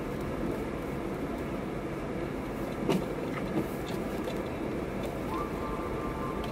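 Car driving slowly over a snow-covered road, heard from inside the cabin: a steady rumble of engine and tyres with a few sharp knocks and clicks, the loudest about three seconds in. A faint steady high tone comes in a little after five seconds.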